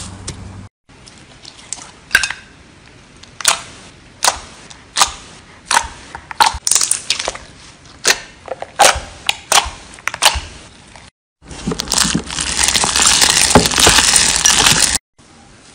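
Slime being pressed and squeezed by hand, giving sharp crunching pops about once or twice a second, then a dense run of crackling crunches near the end.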